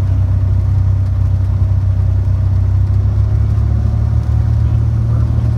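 Cessna 210's six-cylinder Continental engine and propeller running with a steady low drone, heard from inside the cabin as the plane taxis along a grass airstrip after landing.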